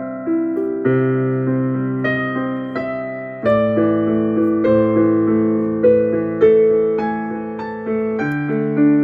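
Background music: a slow, gentle electric piano piece, chords struck about once a second and left to ring and fade.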